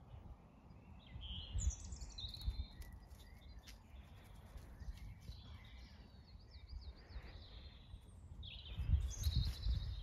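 Wild birds singing in a garden, several twittering and warbling phrases in quick succession, with a burst of song near the end. Under it runs an uneven low rumble, loudest about two seconds in and again near the end.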